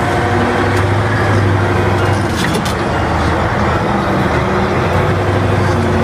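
Caterpillar 988B wheel loader's diesel engine running steadily as the loader lifts a heavy marble block.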